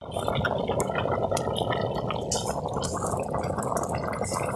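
Biryani rice boiling hard in a large steel pot over a wood fire: a dense, steady bubbling as the water cooks down into the rice.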